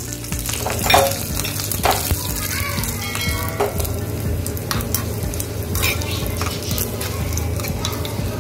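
Curry leaves and green chillies sizzling in hot oil with cumin seeds in a small steel pan, with scattered sharp pops and crackles. This is the tempering (thalippu) being fried for rasam.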